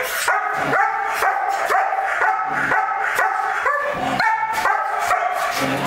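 German Shepherd dog barking repeatedly and fast, about two to three high-pitched barks a second with no let-up, at a helper holding a jute bite sleeve in protection training.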